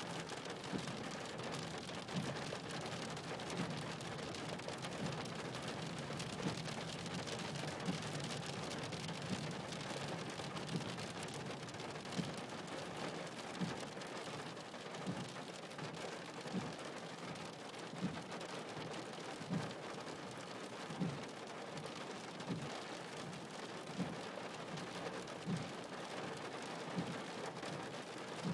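Rain falling steadily on a car's roof and windscreen, heard from inside the cabin. A soft low thump comes about every second and a half from the windscreen wipers sweeping.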